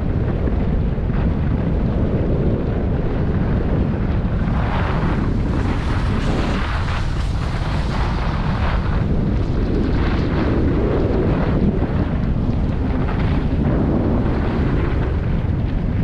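Wind buffeting the microphone during a fast downhill ski run, a steady low rumble. Over it run the hiss and scrape of skis on packed snow, strongest from about four to nine seconds in.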